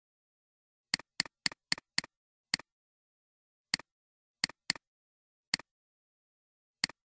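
Computer mouse clicks, each a short sharp two-part click of press and release. There is a quick run of five about a second in, then single clicks and pairs, eleven in all, with dead silence between them.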